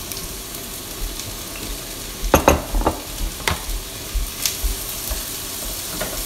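Diced onions sizzling in hot vegetable oil in an enamelled pan just after being tipped in, then stirred with a wooden spoon. A steady frying hiss, with a few sharp knocks a little over two seconds in and lighter taps after.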